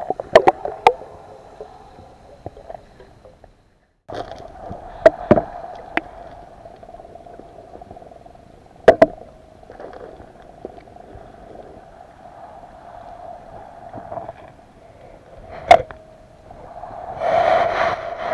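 Muffled underwater sound on the seabed: a steady hum with sharp clicks and knocks every few seconds, and a swelling rush of water near the end.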